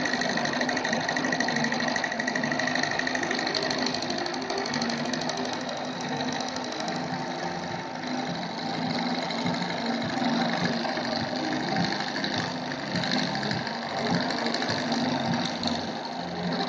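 Milling machine running steadily, its end mill cutting into a metal AR-15 handguard held in a vise. A high steady whine sits over the cutting noise for the first few seconds.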